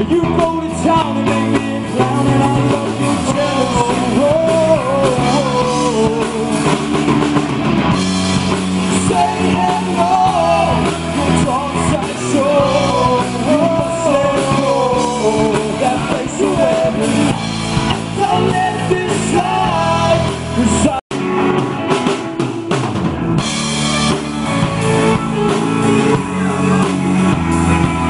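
Rock band playing live, with drum kit, guitars and a wavering melodic lead line over them. The sound cuts out for an instant about 21 seconds in.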